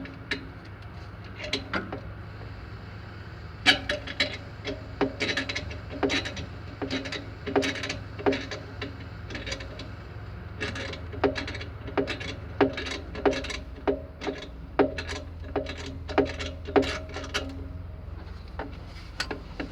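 Ratchet wrench and other metal hand tools clicking and clinking in quick irregular runs while the alternator's mounting bolts are worked on a Volvo EC210BLC excavator. The clicks come thickest from about four seconds in until near the end.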